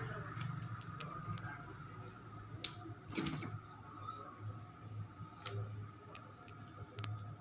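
Faint handling clicks and rustles of tape being wrapped around a pair of metal tweezers to insulate their tips, with a brief sharper rustle about three seconds in, over a low steady hum.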